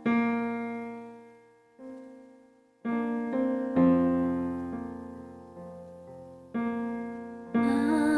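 Keyboard playing slow piano chords, each struck and left to fade before the next, about half a dozen in all.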